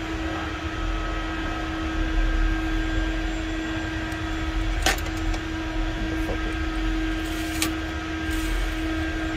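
Steady mechanical hum with a constant tone running underneath, broken by two short, sharp clicks, about five seconds in and again a little before eight seconds.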